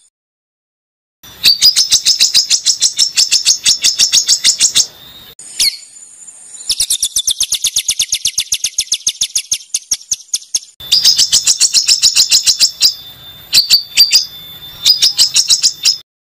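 Songbird singing harsh rapid-fire trills of about ten notes a second, in several runs lasting one to four seconds each, with a single short whistled glide about five and a half seconds in. Each run starts and stops abruptly.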